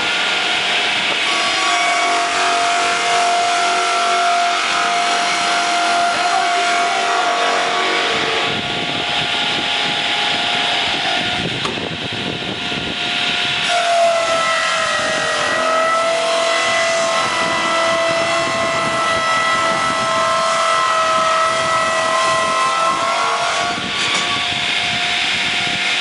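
Donaris swing blade sawmill running, its circular blade sawing through a pine log with a steady whine over a hiss. About halfway through, the whine breaks off and comes back slightly lower, then climbs back up.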